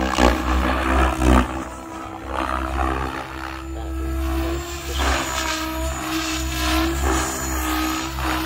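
Electric SAB Goblin RAW radio-controlled helicopter in aerobatic flight: its rotor and motor make a continuous hum, and the tone swells in repeated pulses in the second half as it manoeuvres. A strong low rumble runs underneath.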